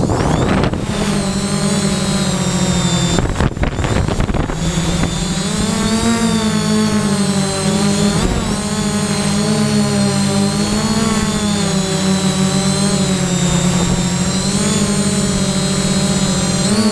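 3DR Y6 multirotor drone's six electric motors and propellers whining, heard from the camera mounted on the drone as it lifts off and climbs. The sound is rough and gusty for the first few seconds, then settles into a steady pitched whine that wavers slightly up and down as the throttle changes.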